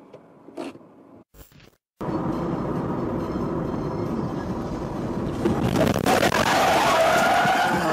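Faint hum inside a moving car, then from about two seconds in loud road and engine noise from a car driving at night, which grows louder about three and a half seconds later as the car slides off the road, with a wavering squeal near the end.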